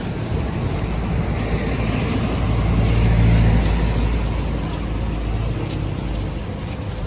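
A motor vehicle's engine rumble that swells to its loudest about three seconds in and then fades, as when a vehicle passes by.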